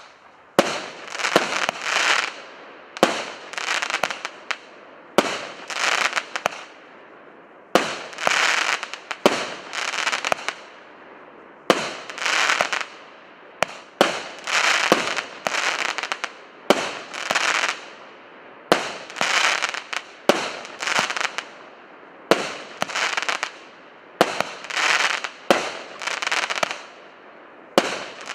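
Consumer firework cake of 36 one-inch shots (PC724 'Svaty') firing in succession, about one shot a second: each a sharp launch pop followed by about a second of hissing noise from the break.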